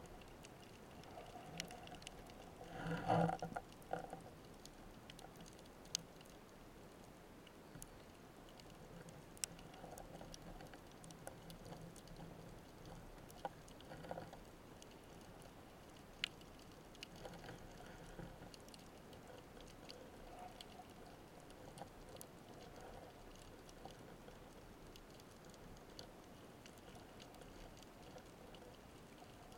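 Faint underwater ambience muffled by a waterproof camera housing: a low steady hiss with scattered sharp clicks, and a brief louder burst of noise about three seconds in.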